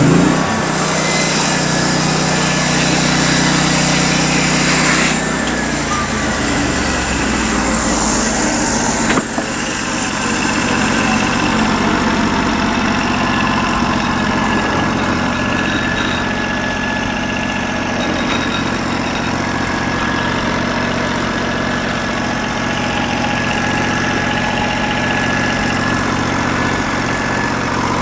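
Norwood LM29 portable band sawmill running on its 16 hp engine while the blade cuts a slab off a log, a steady engine and saw noise throughout. A single sharp click comes about nine seconds in.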